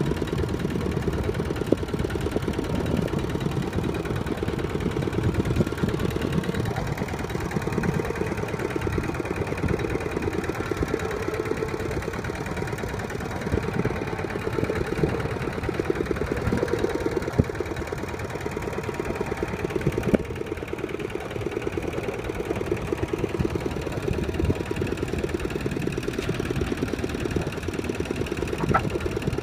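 Two-wheel walking tractor's engine running steadily as the tractor travels, with fast, even chugging and an occasional sharper knock, one about twenty seconds in.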